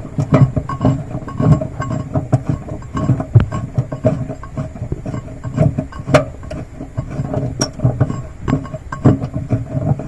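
Repeated metallic clinks and knocks as the spare tyre's hold-down fastening is unscrewed and pulled free in the car's boot.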